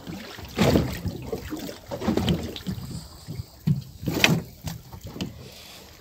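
Fishing handline being hauled in hand over hand through gloved hands, an irregular series of rubbing swishes about every half second to a second.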